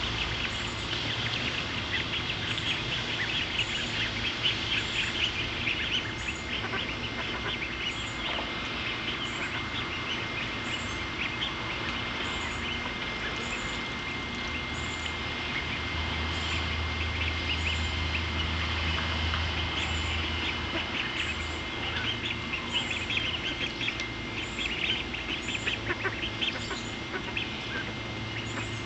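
A flock of young ducklings peeping continuously, many short high calls overlapping. The calling is busiest in the first few seconds and picks up again after about 22 seconds.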